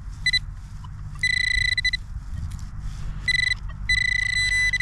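Metal detector beeping: four high, steady tones at one pitch, two short and two long, the last running on. The detectorist wonders whether these signals are the machine falsing.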